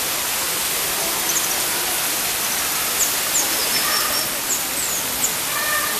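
Steady rush of running water, with short, high chirps from small birds over it, a few in the middle and more near the end.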